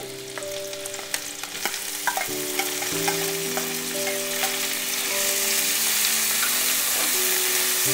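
Chopped onions sizzling as they hit hot oil with garlic and ginger in a steel kadai. A steel spoon stirs and scrapes the pan with small clicks. The sizzle grows steadily louder.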